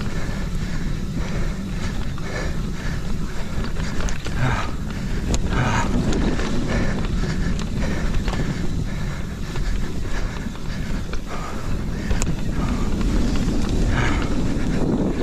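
Mountain bike riding fast down a dirt forest trail: wind rushing over the camera's microphone over a steady rumble of tyres on dirt, with frequent small knocks and rattles from the bike.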